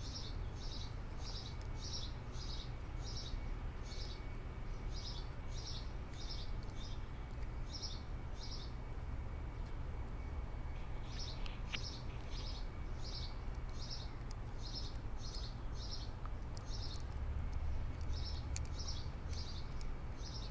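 A bird chirping over and over, about three short high chirps a second, in two long runs with a pause of about two seconds between them, over a steady low background rumble. A couple of faint clicks stand out in the second run.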